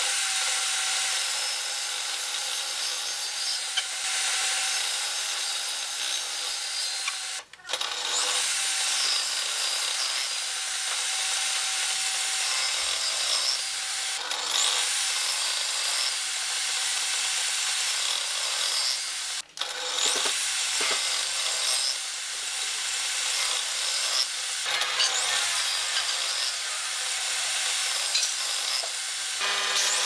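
Benchtop table saw running and cutting through wooden boards, a steady, high-pitched cutting noise whose pitch shifts now and then as the wood is pushed into the blade. It cuts out abruptly for a moment twice.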